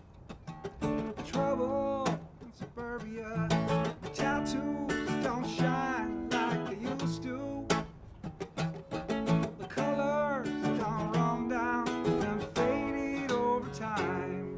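Acoustic guitar strummed in a steady rhythm under a man's singing voice, a solo singer-songwriter performance.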